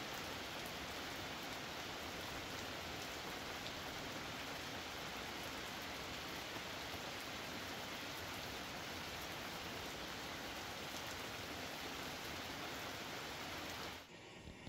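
Steady, hard rain falling on the forest and campsite, an even hiss of many drops, cutting off suddenly near the end.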